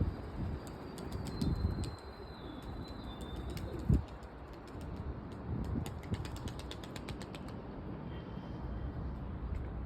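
Pigeons' wings clapping in flight: a fast run of sharp clicks over a low rumble, stopping about seven and a half seconds in, with one louder thump about four seconds in.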